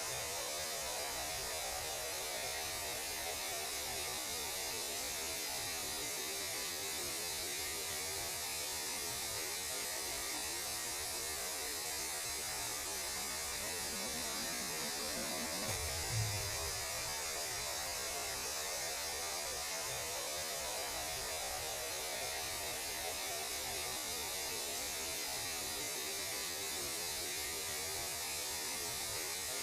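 Steady electronic hum under a static-like hiss, presented as the 'sounds of space'. A brief low thump comes about halfway through.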